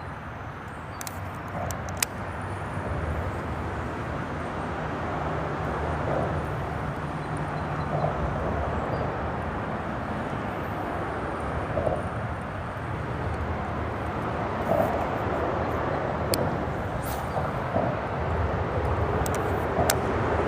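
Steady rumble of freeway traffic on a bridge overhead, with a few small sharp clicks.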